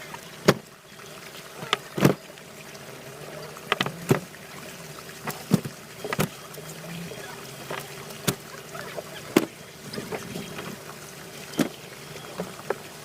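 Sharp, irregular knocks and taps, about a dozen, on a fishing boat, over the steady hum of its running engine.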